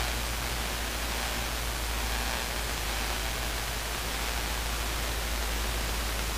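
In-flight cabin noise of a Luscombe 8A light plane: an even, steady hiss of engine and airflow with a low hum underneath.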